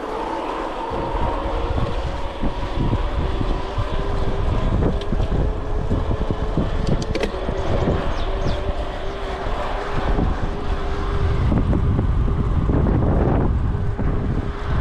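Wind buffeting the microphone of a bicycle being ridden fast, with a faint steady hum running underneath.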